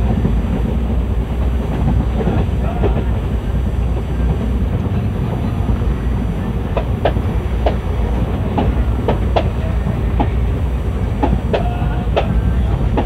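ICF passenger coach running along the track: a steady low rumble, with sharp clacks of the wheels over rail joints coming in clusters from about halfway through, and a few brief squeaks.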